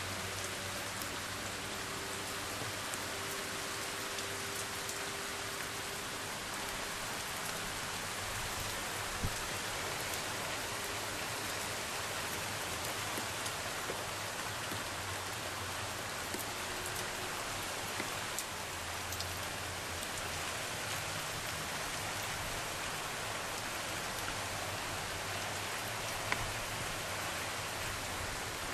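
Steady typhoon rain falling and pattering on surfaces, with a few sharper single drop hits.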